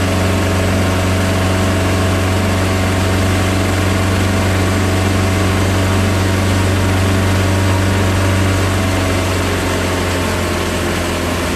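Motorboat's gasoline engine running steadily under load at cruising speed, a constant low drone, over the rush of water and wind.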